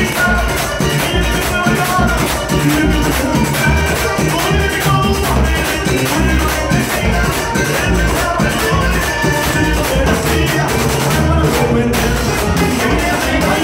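A vallenato band playing live: a button accordion carries the melody over bass and drums, with a scraped guacharaca keeping a steady rhythm and a man singing into a microphone.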